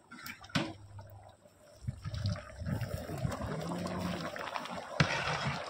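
A long ladle stirring and scooping thick chicken curry in a large steel pot, the gravy sloshing and pouring off the ladle. There is a sharp knock about half a second in and another about five seconds in.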